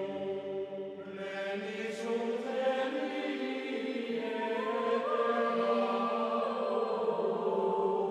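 Background music: a choir chanting in long held notes, in the style of monks' plainchant.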